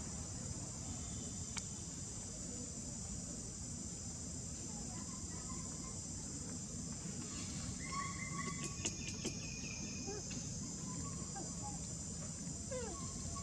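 Steady, high-pitched drone of an insect chorus over a low rumble, with a few short chirps and clicks about halfway through.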